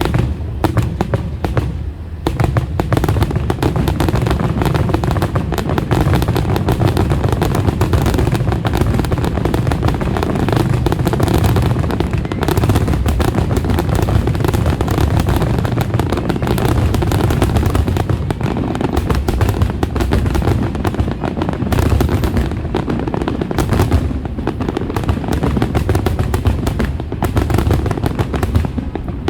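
Fireworks grand finale: a dense, continuous barrage of aerial shell bursts, the loud bangs and low booms overlapping one another with no gaps.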